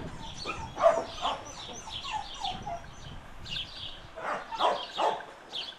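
Kennelled dogs barking and yelping: a busy run of short, high yelps and yips, with a few louder barks a little after the middle.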